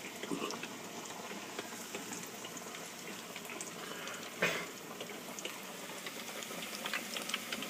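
Battered Twinkies frying in a deep fryer's hot oil: a steady bubbling sizzle with small crackles, and one sharp click about four and a half seconds in.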